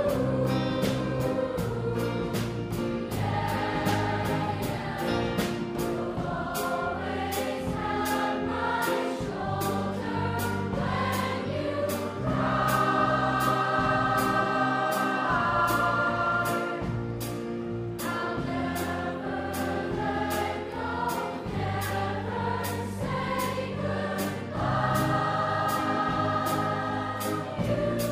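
Middle school choir singing with a live house band, a steady beat and bass under the voices. The choir holds long chords about halfway through and again near the end.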